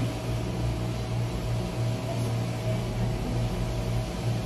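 An appliance motor running steadily: a low hum with an even rushing noise over it, unchanging throughout.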